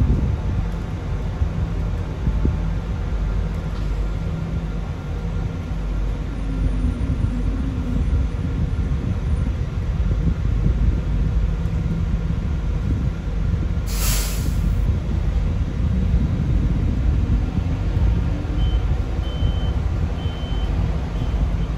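Sunwin SWB6127EV electric bus running, heard from on board: a steady low rumble of road and drivetrain noise. A sharp hiss of released brake air lasts about a second, roughly two-thirds of the way in, and a run of short high beeps starts near the end.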